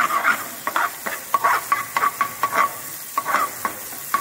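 A steel ladle stirring chopped ginger and green chillies as they sauté in hot oil in a metal tadka pan: the oil sizzles, and the ladle scrapes and clinks on the pan in quick, irregular strokes, several a second.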